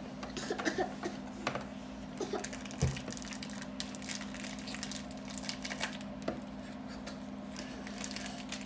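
Light rustling and small taps of ribbon being handled and tied onto a yarn-wrapped dream catcher hoop, over a steady low hum.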